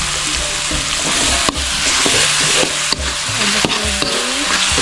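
Chili spice paste sizzling as it is stir-fried in a metal wok, a metal spatula scraping through it, with a couple of sharp knocks of the spatula against the pan.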